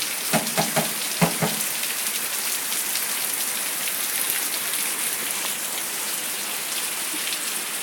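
Heavy rain pouring down during a thunderstorm: a steady, dense hiss with no thunder.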